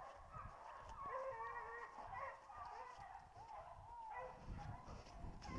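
Griffon bleu de Gascogne hounds baying faintly, several voices overlapping and bending up and down in pitch.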